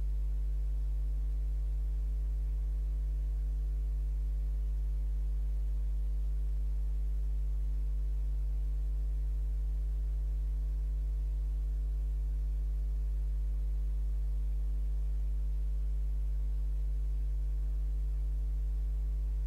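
Steady electrical mains hum, a low tone near 50 Hz with a ladder of overtones, unchanging and much louder than anything else.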